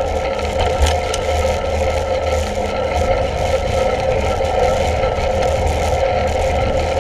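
Bicycle rolling along on asphalt, heard through a handlebar-mounted camera: low wind rumble on the microphone over a steady rolling hum.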